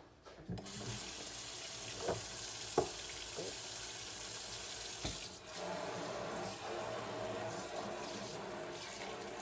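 Kitchen tap running steadily into the sink, with a few light knocks and clinks.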